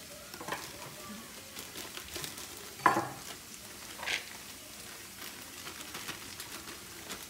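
Ground beef and onions sizzling steadily in a skillet, with brief crinkles of plastic packaging as shredded cabbage and carrots are shaken into a bowl; the loudest crinkle comes about three seconds in.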